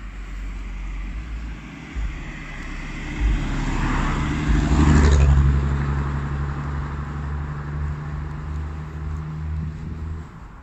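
A car driving past, growing louder to a peak about halfway through and then fading, with its engine hum running on until near the end.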